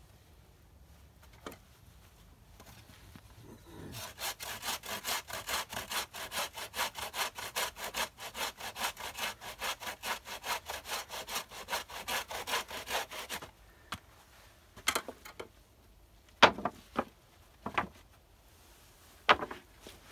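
A hand saw cutting through wood in quick, even back-and-forth strokes, about three a second, for roughly nine seconds, then stopping suddenly. A few sharp knocks follow.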